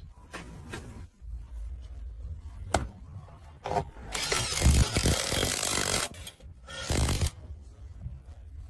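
Mechanical workshop sounds of parts being worked by hand: a few sharp clicks, then a long scraping rub about four seconds in and a shorter one near seven seconds, over a low rumble.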